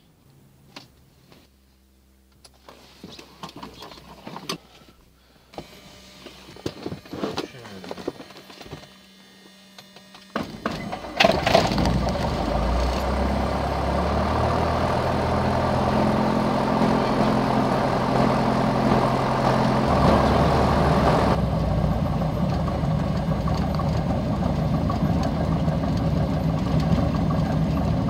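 Scattered clicks of switches in the cockpit of a Piper PA-28, then the engine turns over on the starter about ten seconds in and fires, settling into a steady low-power run heard from inside the cabin. Its pitch shifts a little about two-thirds of the way through.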